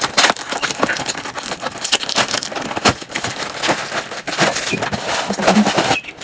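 Packaging crinkling and crackling, with scattered clicks and knocks, as a light stand is unwrapped and handled.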